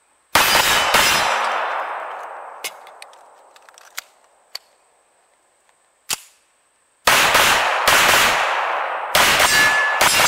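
Pistol shots at steel plate targets, each crack followed by ringing steel and a long echoing decay. Two shots come about a second in, then a pause of several seconds with a few small clicks, typical of a mid-string magazine change, then a quick volley of several more shots near the end.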